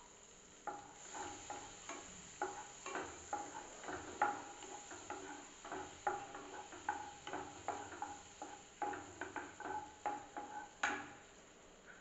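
Wooden spatula stirring melting butter in a non-stick kadhai: short scraping strokes across the pan base, about two or three a second, ending with a sharper knock about a second before the end.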